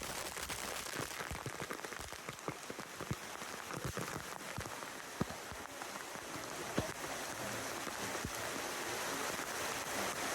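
Falling water splashing: a steady hiss of pouring water with many separate drops and splashes hitting the surface.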